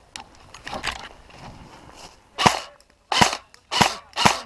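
Airsoft gun firing four single shots about 0.6 s apart, starting about halfway through, after a few faint clicks and rustles.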